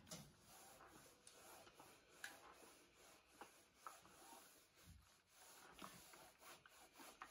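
Faint rubbing of a Panasonic steam iron sliding back and forth over a dress shirt on an ironing board, with scattered light ticks and knocks.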